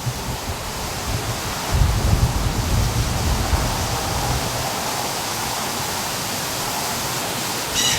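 Strong wind blowing in a steady rushing hiss, with heavy low gusts buffeting the microphone from about two to four seconds in. A brief high chirp comes just before the end.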